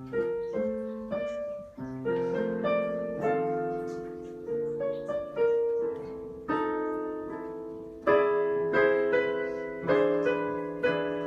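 Piano music: gentle chords and melody notes struck one after another, each ringing and dying away.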